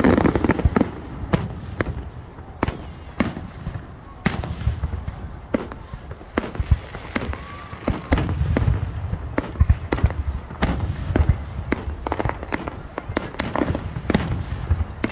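Aerial firework shells bursting overhead in an irregular string of sharp bangs, several a second at times, over a low rumble.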